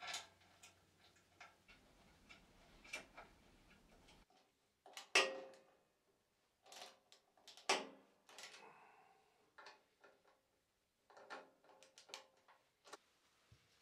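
Irregular light clicks and taps of a small marking tool and fingers against the bandsaw's sheet-steel frame. Two louder knocks, about five and eight seconds in, leave a short faint ring.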